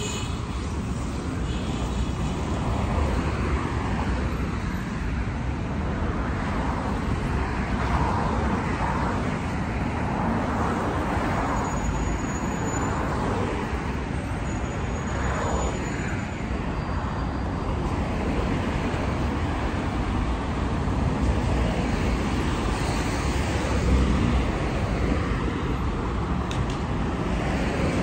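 Steady road traffic noise: a continuous rush of passing cars, swelling now and then as a vehicle goes by.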